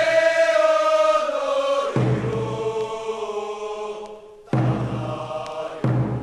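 A group singing a Japanese school cheer song in unison, in long held notes; new phrases start sharply about two, four and a half and six seconds in, each with a low thump.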